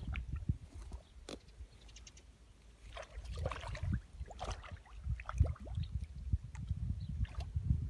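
Vobla (Caspian roach) splashing and churning at the surface of shallow floodwater while spawning, in irregular bursts, busiest in the middle, over a low buffeting rumble.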